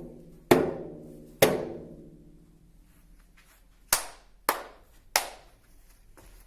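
Knocks on a resonant object in a game of knock-knock: two knocks a second apart, each ringing on with a low tone, then after a pause three quicker, shorter knocks.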